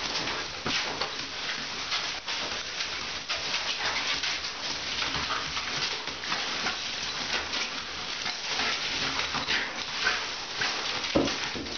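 Handheld shower spray hissing onto a bathtub and a wet schnauzer puppy, with irregular splashing as the dog plays in the stream.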